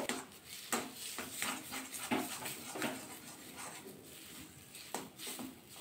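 Metal spatula stirring and scraping mashed potato filling around a steel kadai, a series of soft, irregular scrapes and knocks.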